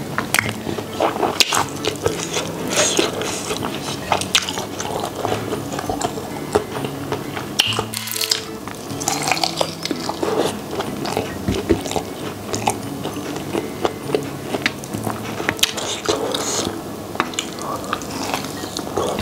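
A person biting and chewing crispy fried chicken coated in fiery level-5 sauce, with many short crunchy, crackling bites, over steady background music.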